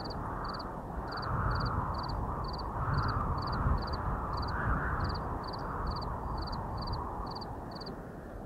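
A cricket chirping steadily, about two short pulsed chirps a second, stopping shortly before the end, over a rushing wind that swells and eases every couple of seconds.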